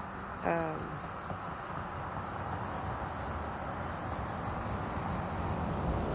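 A vehicle approaching on the road, its road noise rising steadily, over a steady pulsing chirp of crickets.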